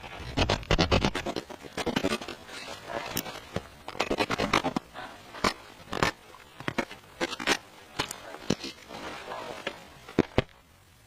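Irregular scraping and scratching with many sharp clicks and knocks, close up. The sounds come in dense clusters at first and thin out to scattered single clicks in the second half.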